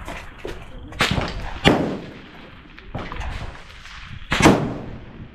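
25 Creedmoor rifle shots: sharp cracks about a second in and again just under two seconds in, and the loudest one near the end.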